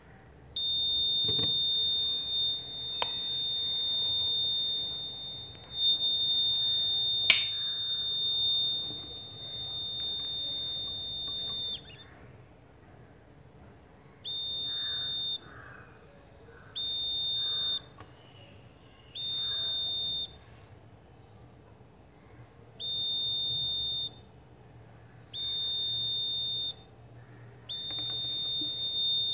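Alarm buzzer of a breadboard laser tripwire circuit (LDR and BC547 transistor) sounding a steady high-pitched tone for about eleven seconds, with a sharp click about seven seconds in. It then beeps six times, each beep about a second long, roughly every two and a half seconds, as the light sensor switches it on and off.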